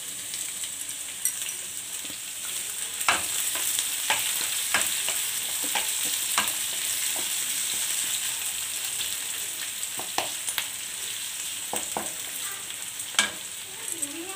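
Chopped onions sizzling in hot oil in a kadai with whole spices, stirred with a spatula that scrapes and clacks against the pan several times.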